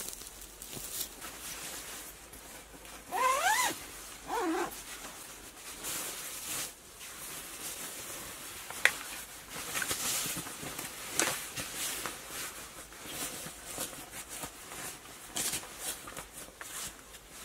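Nylon sleeping bags rustling and swishing as they are spread out, shaken and smoothed on a sleeping mat, with zip rasps and a sharp click about nine seconds in. About three seconds in come two short whine-like calls that rise in pitch.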